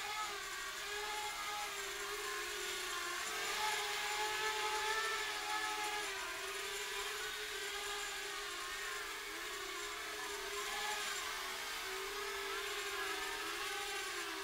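Blade Inductrix Switch Air micro quadcopter wing in flight, its small electric motors and propellers making a steady whine whose pitch wavers up and down.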